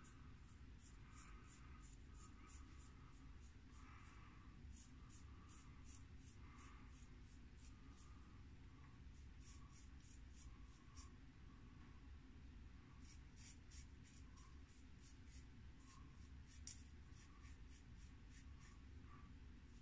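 A 5/8 Sheffield (George Wostenholm) straight razor cutting through several days' stubble on lathered skin. Faint, short scratchy strokes come in quick runs of a few a second, with pauses between runs.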